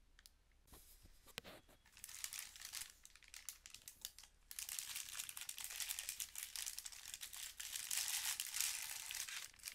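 Thin clear plastic packaging bag crinkling as it is pulled open and worked off a compact hair dryer. A few scattered crackles come first, then dense, continuous crinkling through the second half.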